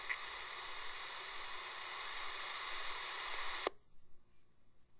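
Police radio scanner hiss on an open channel with no voice, cut off by a sharp squelch click about three and a half seconds in as the transmission ends, leaving the channel nearly silent.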